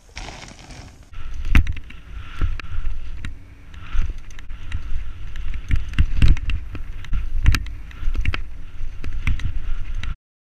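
Mountain bike descending a rough dirt trail, heard from a helmet-mounted camera: a loud, low rumble of wind and tyres, with many sharp knocks and rattles as the bike hits roots and bumps. It grows loud about a second in and cuts off suddenly near the end.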